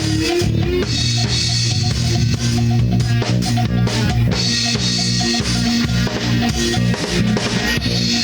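An alternative rock band playing an instrumental passage: drum kit, electric bass and two electric guitars, recorded live to cassette.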